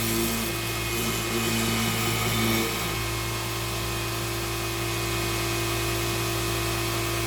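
KMG-TX 2x72 belt grinder running steadily, with a steel knife blank being ground against the belt for the first two to three seconds. After that the motor and belt run on with a steady hum.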